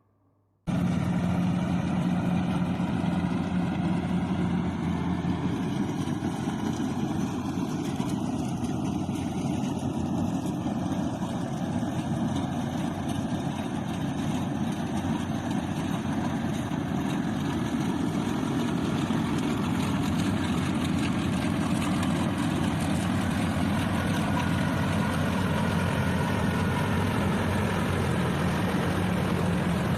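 Rice harvester engine running steadily, cutting in abruptly less than a second in after a brief silence, with small slow shifts in pitch.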